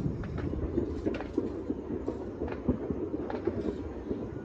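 Many distant New Year's fireworks and firecrackers going off across a town: a constant rumble of overlapping pops and bangs, several a second, with one sharper bang a little past halfway.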